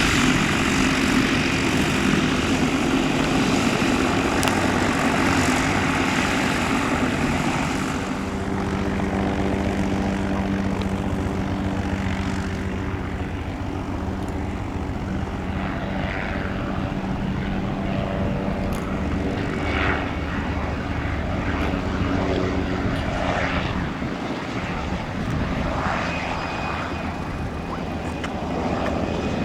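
Light propeller aircraft's piston engine running, loudest for the first several seconds, then easing to a quieter, steady drone.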